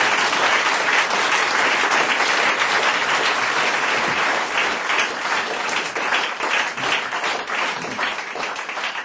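Audience applauding, dense and steady, thinning a little near the end.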